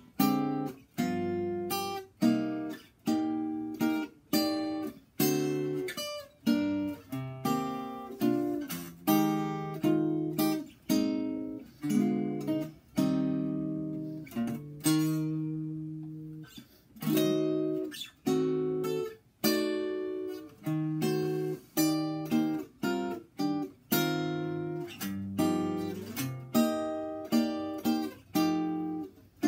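A 1934 Epiphone Royal archtop guitar with bronze-wound strings played acoustically as a solo chord-melody arrangement. Chords are struck one after another, about one or two a second, each ringing with rich overtones and fading before the next.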